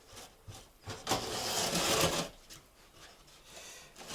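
Knife scraping along a sheet of drywall as it is cut: a rough rasping stroke starting about a second in and lasting a little over a second, with a fainter scrape near the end.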